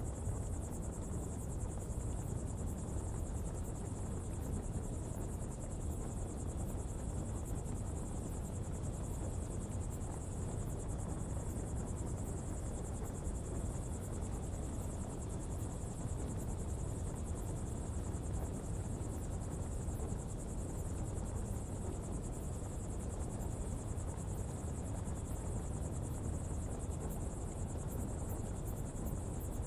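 Coal-fuelled pottery fire burning with a steady low rush. A constant high insect chorus runs over it.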